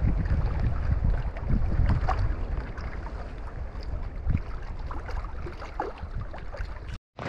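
Wind buffeting the microphone: a gusty low rumble with scattered small taps, easing off over the few seconds before it cuts off suddenly near the end.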